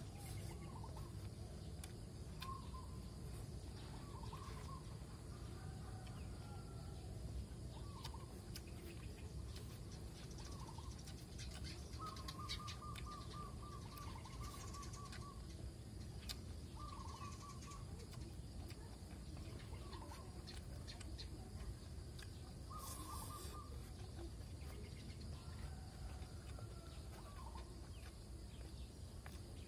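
Birds calling outdoors: short repeated chirps come every second or two, with a rapid run of notes about halfway through, over a steady low background noise.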